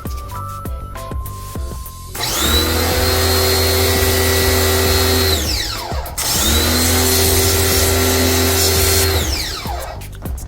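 Handheld electric power tool run twice for about three seconds each, its motor whine rising as it spins up and falling as it winds down, with a short pause between. Background music plays faintly before the first run.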